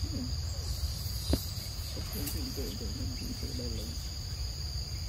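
Steady high-pitched drone of insects, with low, indistinct human voices in the background and a single sharp click about a second and a half in.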